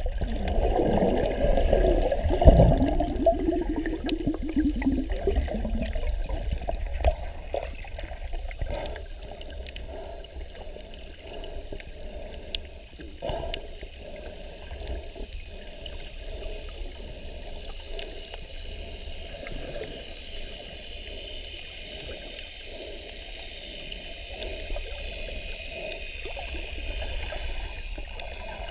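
Water heard underwater by a submerged camera: muffled rushing and bubbling, loudest in the first six seconds with a warbling sound, then a steady wash of water with many scattered faint clicks.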